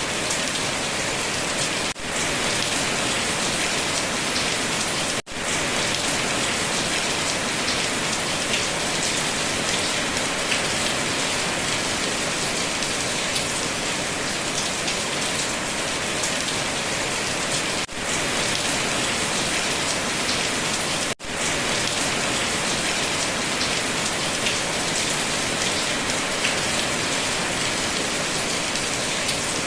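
Steady rain falling, an even hiss of drops that cuts out for an instant four times.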